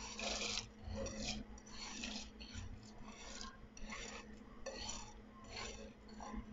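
Silicone spatula scraping wet rice off a plate into a pot of water: a run of short, soft scraping strokes, roughly one or two a second.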